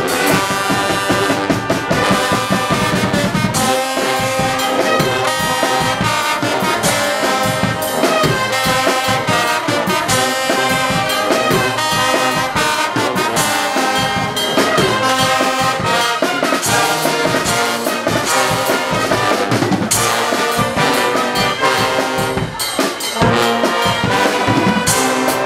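A Guggenmusik carnival brass band plays loudly: sousaphones, trumpets and trombones over a steady beat from a bass drum and a drum kit with cymbals.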